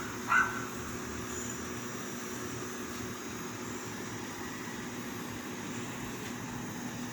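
Midea Glacier DC inverter ductless mini-split air conditioner running steadily on its commissioning test: an even hum with a fan's rush. A dog gives a short yip about half a second in.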